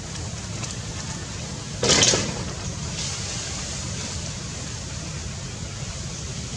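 Steady rumbling wind noise on the microphone, with one short, loud rush of noise about two seconds in.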